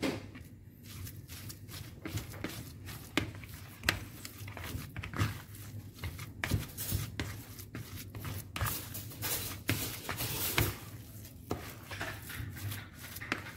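Green plastic rice paddle stirring and scraping crumbly fishing-bait dough around a plastic bowl, a run of quick, irregular scrapes and taps.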